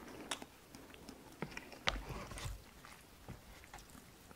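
A person chewing a mouthful of instant cup noodles, with soft wet clicks and smacks of the mouth and one sharper click about two seconds in.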